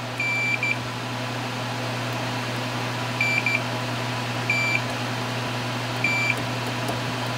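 Fluke multimeter's continuity beeper giving short beeps as the test probes touch the board's pins: a longer beep with a quick short one after it, a quick pair, then two single beeps. Each beep signals continuity between the two points being probed.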